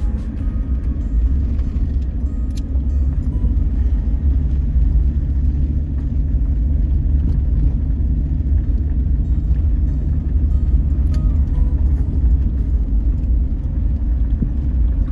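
Steady low rumble of a vehicle driving, with small rattles and clicks scattered through it.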